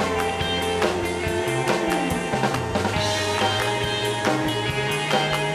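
Background rock music with a steady drum beat and a moving bass line.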